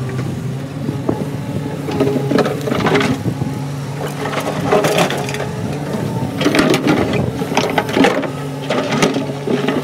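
Diesel engine of a Doosan DX140W wheeled excavator running steadily, while rocks and broken bricks knock, scrape and clatter in the steel bucket and tumble into a steel trailer bed, in an irregular run of sharp knocks from about two seconds in.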